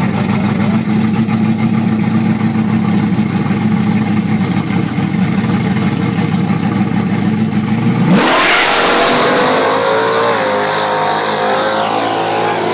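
Drag-racing car engines running steadily at the line. About eight seconds in they break into a sudden loud full-throttle launch, with the engine pitch climbing and shifting as the cars accelerate away.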